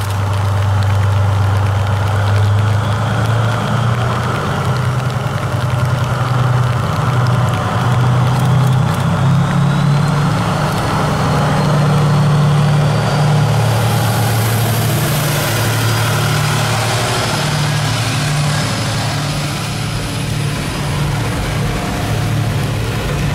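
DF200 diesel-electric locomotive pulling away with a train. Its engine runs loud and deep, stepping up in pitch about two seconds in as it powers up. A faint whine slowly rises above it, and from about halfway through a hiss comes in as the coaches roll by.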